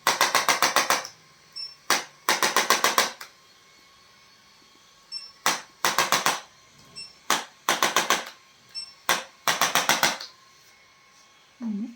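Runs of sharp, rapid mechanical clicks, about eight to ten a second, each run lasting under a second, with single clicks between runs. A brief low-pitched sound comes near the end.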